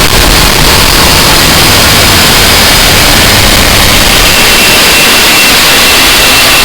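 Harsh noise music: a loud, unbroken wall of distorted static filling the whole range. A thin, steady high tone starts to come through faintly near the end.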